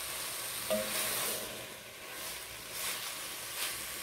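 Ground beef sizzling in a stone-coated wok while a wooden spatula stirs and turns it, with a few scraping strokes. The meat is frying until the juices it released cook off.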